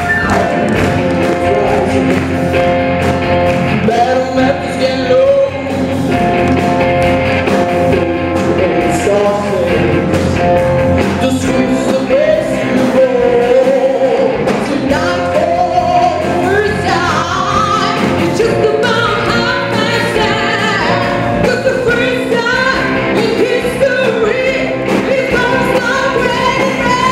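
Live rock band playing: a woman sings lead into a microphone over electric guitars, drums and keyboard.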